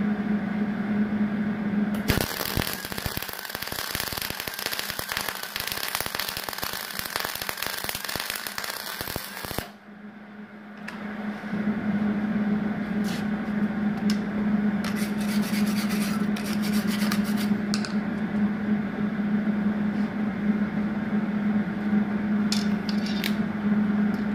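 MIG welding aluminum with aluminum wire and argon through a standard Hobart MIG gun, without a spool gun. The arc crackles harshly and steadily for about eight seconds, starting about two seconds in, then stops. Afterwards a steady hum continues, with a few brief scratchy sounds.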